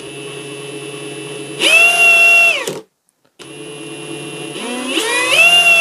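Ryobi HP RIWH18X brushless impact wrench running free on speed setting one, its motor whine rising and falling with the trigger. It runs steadily, steps up to a higher speed, and winds down just before halfway. It then starts again and climbs to a higher speed in several stages near the end.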